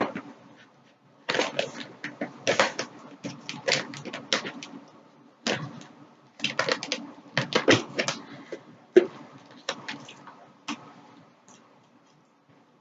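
Close-miked eating sounds: crisp crunching and wet clicking from chewing fried seafood, in irregular clusters that thin out near the end.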